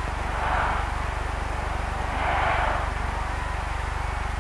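Steady hum and hiss of an old film soundtrack, with two soft swells of hiss.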